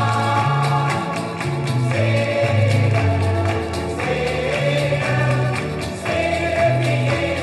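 Mixed congregational choir singing a Swedish gospel song with band accompaniment, played from a 1976 vinyl LP. A bass line steps from note to note under the voices, over a steady percussion beat.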